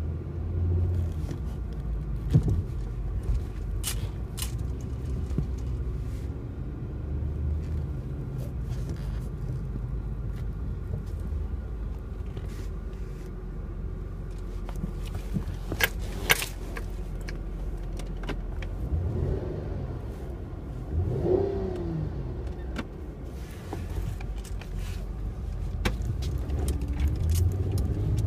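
Chrysler 300 driving, its engine and road noise heard as a steady low rumble inside the cabin. A few sharp clicks and rattles come through, and about two-thirds of the way in the engine pitch rises and falls briefly.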